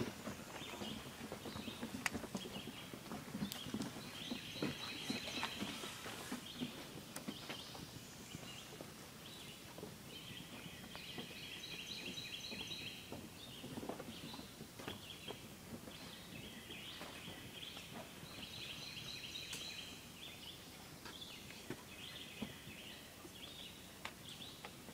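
White-tailed deer stepping through dry leaf litter and twigs on a swamp floor, making scattered crackles and rustles. A high, rapidly pulsing trill comes and goes in spells several seconds apart behind it.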